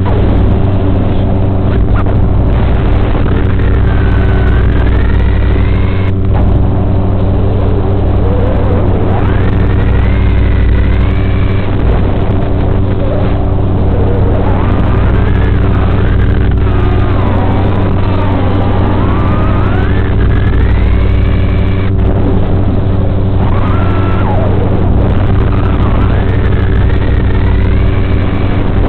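FPV quadcopter's electric motors whining, their pitch rising and falling as the throttle changes, over a steady low electrical buzz.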